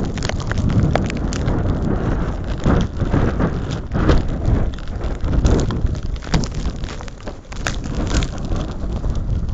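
Blizzard wind buffeting the microphone: a heavy, rumbling noise that swells and eases in gusts, with a few sharp ticks scattered through it.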